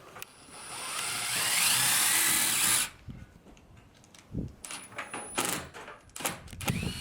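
Power drill driving a Tek screw through the side of a solar panel into its aluminium mounting bracket. Its whine rises as it spins for about two and a half seconds and stops abruptly. A short second run and a few clicks follow.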